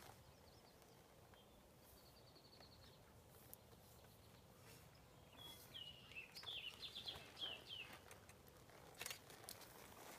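Near silence with a songbird singing: a short trill about two seconds in, then a run of quick falling whistled notes a little past halfway. A sharp click near the end.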